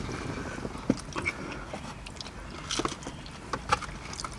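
People chewing and biting food, with scattered short crunches and clicks.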